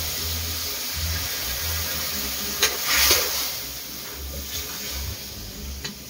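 Water poured into a hot wok of frying pork, sizzling and hissing as it steams, with a click and a louder burst of sizzle about three seconds in before it dies down.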